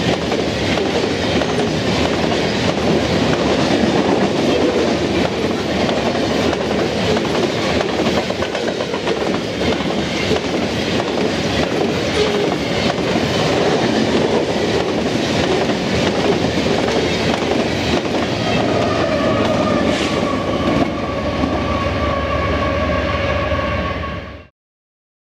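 Covered hopper cars of a freight train rolling past close by: a steady rumble with repeated wheel clicks over the rail joints. About 19 seconds in, a steady two-pitched tone joins the rumble, and the sound cuts off suddenly near the end.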